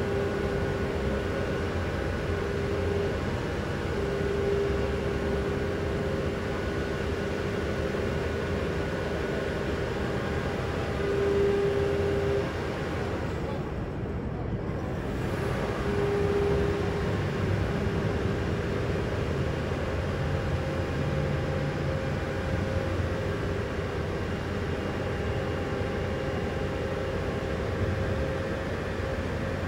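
An engine running steadily: a low hum with a faint humming tone that fades in and out.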